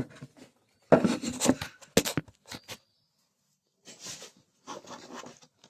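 Hands handling small generator parts during reassembly: a clatter about a second in, a few sharp clicks around two seconds in, then short rustling scrapes near the end.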